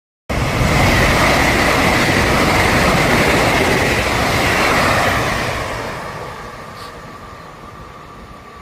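Train passing close by, its wheels and running gear loud with a steady high squeal in the noise. The sound cuts in suddenly, holds for about five seconds, then fades as the train moves away.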